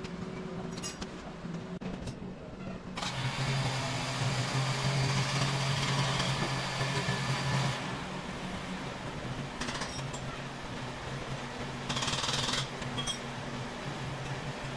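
Workshop machinery: a steady low hum, joined about three seconds in by a loud hissing or grinding noise for about five seconds, then a brief burst of hiss near the end.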